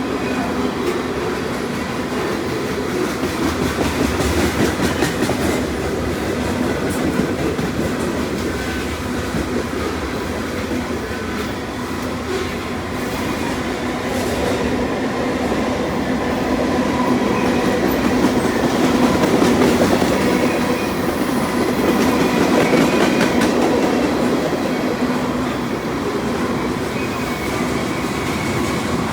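CN freight train's cars rolling past, a steady rumble with the wheels clacking over rail joints and switches.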